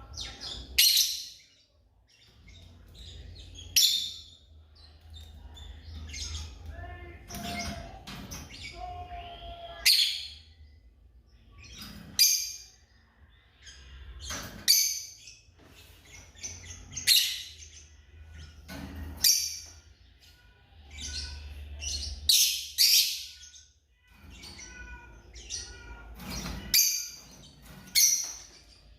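Lovebirds giving shrill, high-pitched chirping calls: loud single calls about every two to three seconds, some in quick pairs, with softer chirps in between.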